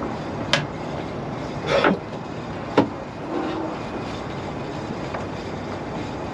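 Steady wind noise over a small boat at anchor, broken by a few sharp knocks and clatters in the first three seconds.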